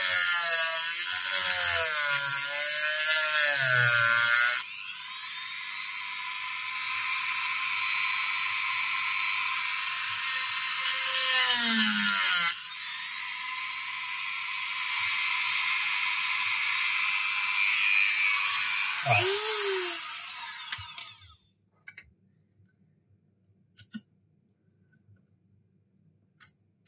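Handheld corded rotary tool grinding the rear glass of an iPhone X: a high-pitched motor whine whose pitch wavers under load, easing off twice, then winding down and stopping about 21 seconds in. A few faint clicks follow.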